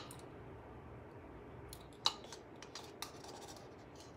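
A few light clicks and taps from handling a baking powder can and a metal measuring spoon, the sharpest about two seconds in, over faint room tone.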